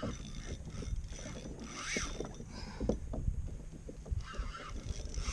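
Water sloshing against a fishing kayak's hull with wind on the microphone, and repeated knocks and clicks from the rod and reel as a fish is fought. A few short pitched sounds rise and fall, about two seconds in and again near the end.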